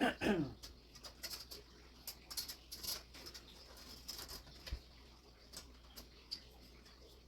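Scattered light clicks and taps of small computer parts being handled, after a short squeal that falls in pitch right at the start.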